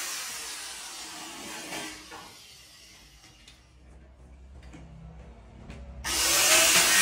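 Electric angle grinder with a sanding disc grinding the face of a black film-faced plywood panel. The grinding fades away over the first couple of seconds, leaving a low hum and a few light ticks, then starts again abruptly and loud about six seconds in.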